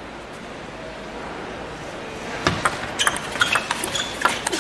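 Table tennis rally: the celluloid ball clicking sharply off rackets and the table in quick succession, starting about two and a half seconds in, over steady arena background noise.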